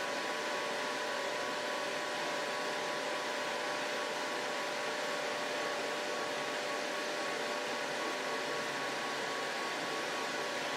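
200W jewelry laser welding machine running after power-on, its water-cooling system's fan and pump making a steady whir with a faint high hum, circulating the cooling water.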